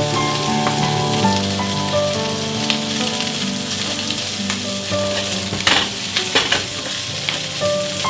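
Fried rice sizzling in a hot pan as it is stir-fried, with a few short scrapes of the spatula a little past the middle.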